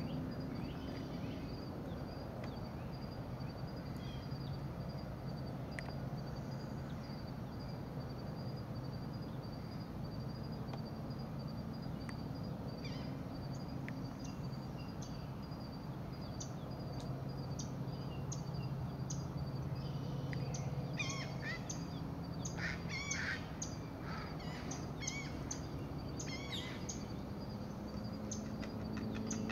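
Great blue heron chicks giving short, sharp clicking calls from the nest. The calls are scattered from about halfway in and come thickest near the end, over a steady low hum and a faint, even high chirping.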